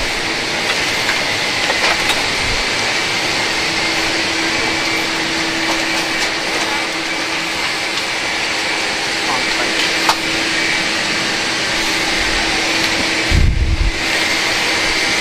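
Steady rush of a Boeing 747-8 cabin's air conditioning, with a faint low hum, under the murmur of passengers' voices. A few light clicks, and a low thump about thirteen seconds in.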